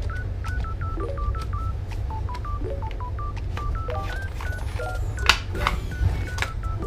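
Background music: a quick run of short plucked notes forming a bouncy melody over a steady low bass.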